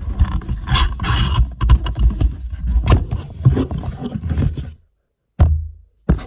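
Handling noise from a camera being gripped and moved by hand: irregular rubbing and scraping with sharp knocks and a low rumble on the microphone. It cuts off suddenly about five seconds in, and one short scrape follows.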